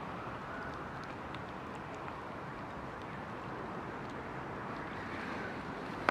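Steady outdoor background noise with a few faint ticks, and a sharp click right at the end.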